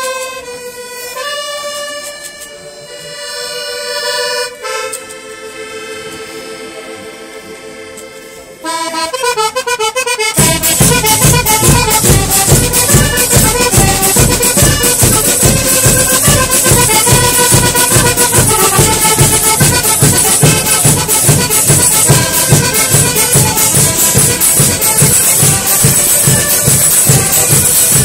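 Diatonic button accordions (organetti) playing a folk tune: held, slow notes for the first eight seconds or so, then the full band comes in about ten seconds in with a fast, steady percussion beat under the accordions.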